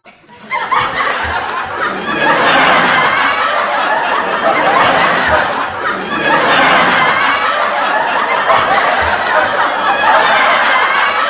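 A crowd laughing loudly, swelling and easing in waves about every four seconds, with a few soft low thumps.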